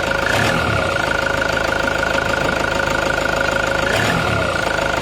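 Toyota Hiace's 1KD-FTV four-cylinder turbo diesel running steadily with a rapid clatter and a steady high whine, as the newly fitted turbo driver is shown working. Brief low thuds come about half a second in and again near four seconds.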